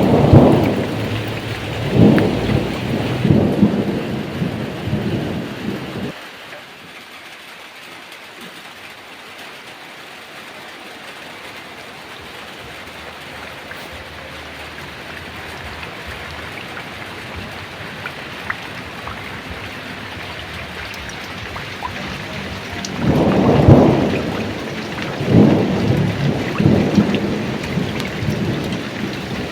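Heavy rain falling steadily with thunder. A rumbling peal fills the first six seconds and cuts off suddenly, leaving only the rain, and another roll of thunder builds from about 23 seconds in.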